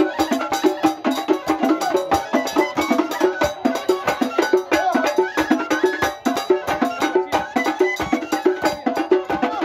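Moroccan Haha folk music: a reed flute (awwad) playing a fast, stepping melody over rapid, dense clacking percussion.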